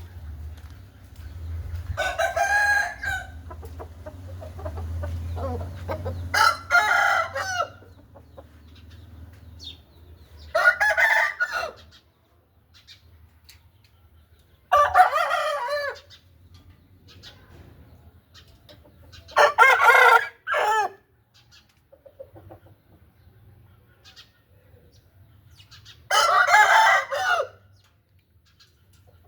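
Aseel roosters crowing, six short crows a few seconds apart. A low rumble runs under the first few seconds.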